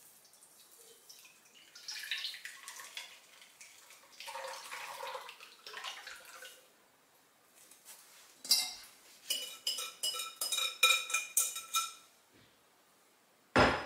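Thick custard base pouring from a glass bowl through a sieve into a stainless steel pot, then a wire whisk rapping and scraping quickly in the sieve with a metallic ring. A single sharp knock near the end.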